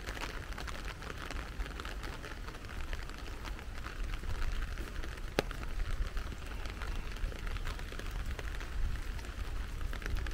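Rain falling steadily, with many single drops ticking close by and one sharper drop tick about five seconds in, over a low steady rumble.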